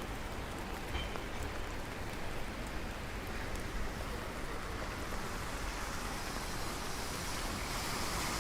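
Steady rain falling, an even hiss with a few sharp drop ticks in the first half. The hiss grows slightly brighter near the end.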